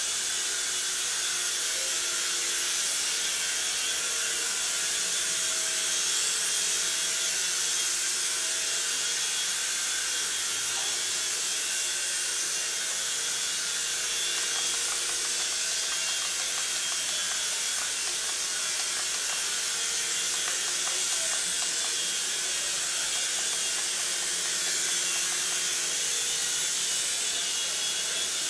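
Two-channel radio-controlled toy helicopter in flight, its small electric motors and rotors giving a steady whirring hiss.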